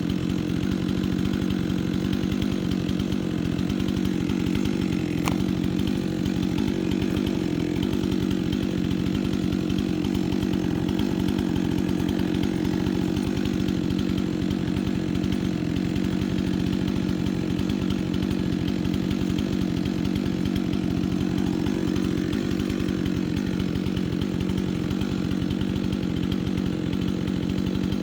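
Chainsaw engine running at a steady, unchanging speed throughout, with one brief click about five seconds in.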